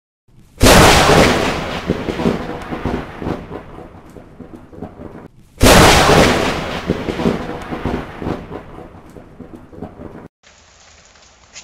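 Two loud thunderclaps about five seconds apart, each starting with a sudden crack and rumbling away over several seconds. Near the end the sound cuts to a faint steady hiss.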